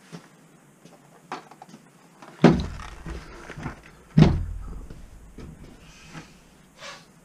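Two boxes of 12-gauge shotgun shells set down one after the other on a gun mat: two thuds about two and a half and four seconds in, with lighter knocks and handling noise around them.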